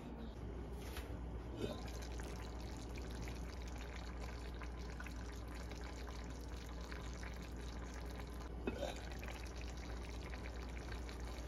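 Hamburg steaks simmering in tomato sauce in an enamelled cast-iron pot, a steady fizz of small bubbles popping, over a low steady hum. Two light knocks stand out, about a second in and near 9 s.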